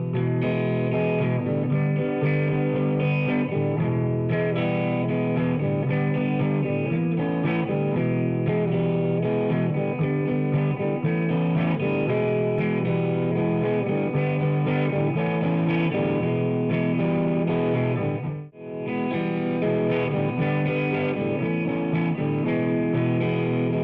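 Background music: distorted electric guitar rock track, with a brief break about eighteen and a half seconds in.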